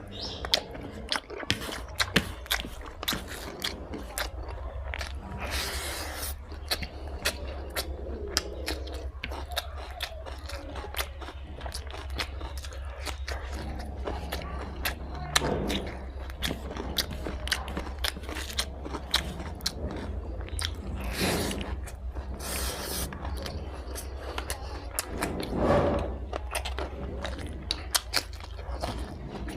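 Close-miked chewing and biting of spicy fried pork with rice: a dense run of wet mouth clicks and crunches, with a few short hissing swells and a steady low hum underneath.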